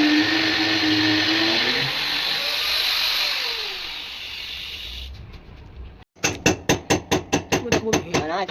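A power tool runs steadily, then winds down with a falling pitch and fades. After a sudden cut, a fast even series of sharp knocks follows at about four a second.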